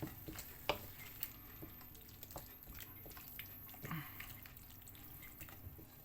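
Spoon stirring chicken and vegetables in a creamy sauce in a pan: faint, scattered wet clicks and taps.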